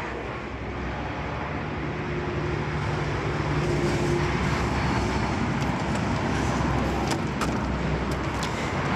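A truck's diesel engine running steadily, a low rumble with a faint hum that grows slowly louder over the first few seconds.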